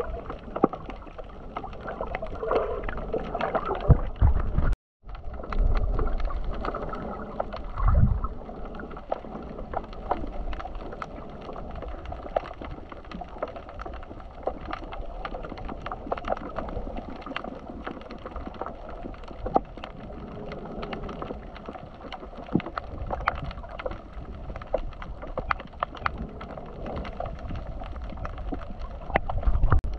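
Muffled sloshing and gurgling of sea water, with many small clicks and ticks throughout. The sound drops out for a moment about five seconds in.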